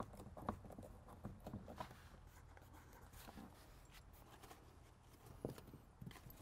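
Faint scattered clicks and scrapes of a hand screwdriver turning a screw into the bottom edge of a car door trim panel.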